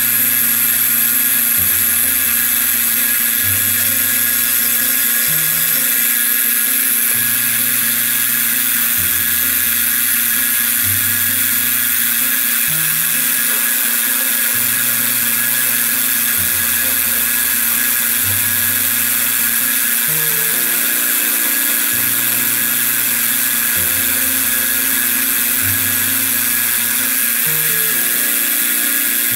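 A milling machine's end mill cutting a slot into a metal pin, a steady high-pitched whine and hiss. Background music with a slow bass line, changing note about every two seconds, plays over it.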